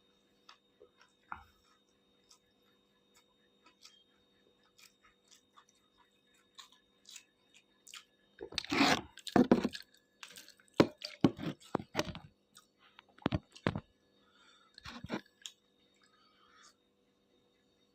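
Close-up chewing of fried noodles mixed with rice. The first eight seconds hold only faint ticks; from about eight seconds in to about fifteen comes a run of loud, crackly chewing.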